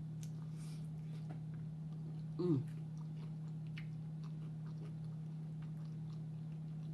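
Quiet chewing and mouth clicks from someone eating egg rolls, over a steady low hum. About two and a half seconds in comes one short falling vocal sound.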